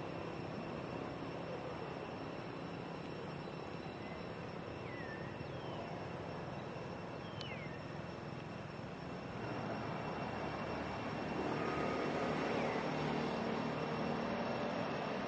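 Steady outdoor drone, like distant engine noise, that grows louder about ten seconds in, with a few short falling bird chirps around the middle.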